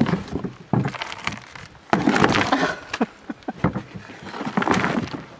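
A potato-growing bucket being emptied by hand: soil and dry potato stems rustling and crunching in four bursts, the loudest about two seconds in.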